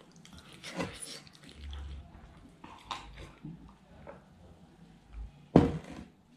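Close-up mouth sounds of eating and drinking: scattered smacks and slurps and a sip of water from a glass, with one louder knock near the end.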